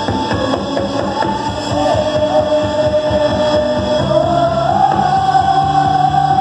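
Live worship band music: keyboard played with the full band and a steady beat under it. A long held melody line steps up in pitch about four seconds in and holds there.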